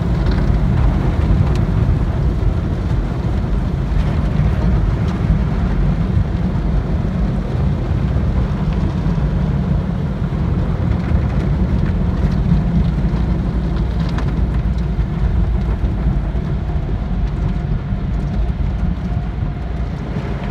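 Automatic car wash heard from inside the car's cabin: water spraying and drumming on the windshield and body over a steady heavy low rumble, the spray thinning a little near the end.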